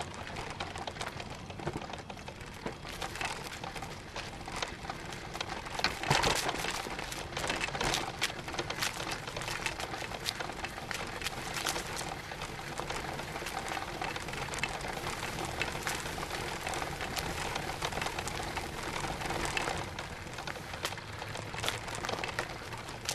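Continuous crackling rattle with many small clicks: the mount and rolling noise of a camera travelling along a paved path. It is loudest around six seconds in.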